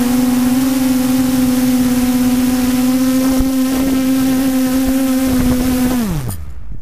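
FPV quadcopter's electric motors and propellers humming steadily, heard from its onboard camera. About six seconds in, the pitch winds down fast and the motors stop after it lands.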